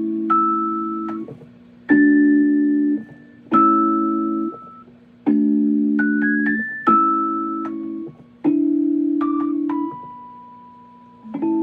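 A keyboard playing a slow series of piano-like chords, each struck and held for about a second before being released, with a few higher melody notes over them. There is a longer gap before the last chord near the end.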